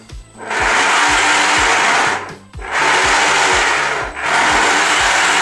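Bait boat's electric propeller motors, powered by LiPo batteries, running at full throttle in the air in three long bursts of about a second and a half each, with short breaks between them. They are loud and run perfectly.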